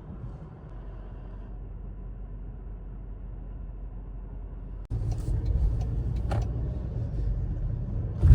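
Car being driven, heard from inside the cabin: a steady low engine and road rumble that becomes louder about five seconds in, with a few light clicks and a knock after that.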